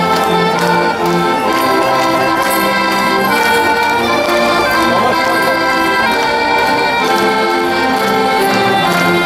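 Traditional folk dance music, its held notes changing at a steady, regular pace.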